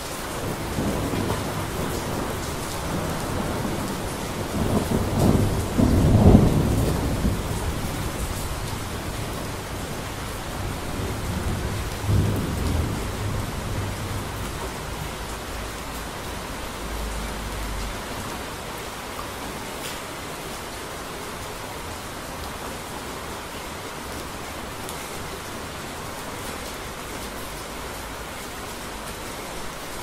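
Rain falling steadily with thunder: a long rumble that builds to its loudest peal about six seconds in, a second peal about twelve seconds in, then dies away, leaving the steady rain.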